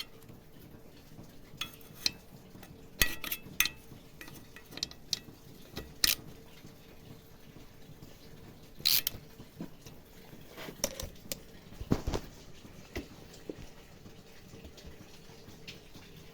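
Scattered sharp clicks and light metallic clinks, irregular and spaced a second or more apart, like small metal parts and tools being picked up and set down during work on a lawn mower. A faint steady hum sits underneath.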